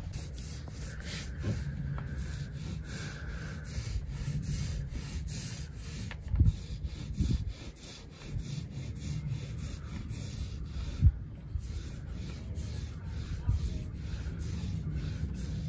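Steady, repeated hand strokes rubbing back and forth over a wooden boat deck, with a few sharper knocks partway through.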